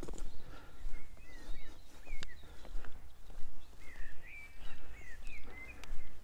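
Footsteps of a person walking at a steady pace, with a songbird singing two short twittering phrases, about a second in and again about four seconds in.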